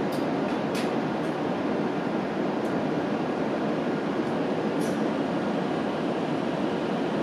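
Steady rumbling noise of a train running, even in level throughout, with a few faint clicks.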